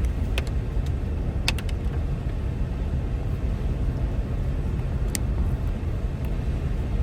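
Steady low rumble of a car's engine and tyres on a wet road, heard from inside the cabin while driving. A few faint ticks stand out over it.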